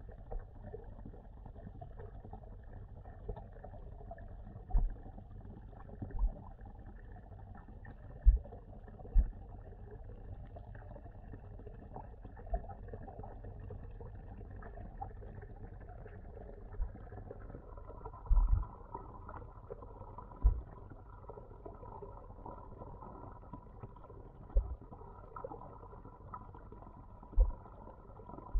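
Muffled underwater pond sound as picked up by a submerged camera: a low steady rumble broken by about ten dull low thumps, with a faint steady hum coming in about two-thirds of the way through.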